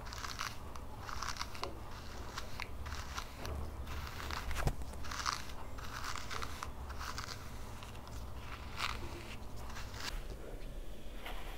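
Tangle Teezer Wet Detangler's plastic bristles dragging through wet, tangled hair in repeated short crackly strokes, about one to two a second, as the hair is detangled. One sharp click about halfway through.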